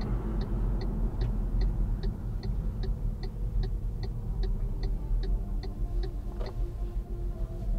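A car's turn-signal indicator ticking evenly, about two and a half ticks a second, over engine and road rumble inside the cabin; the ticking stops about six and a half seconds in.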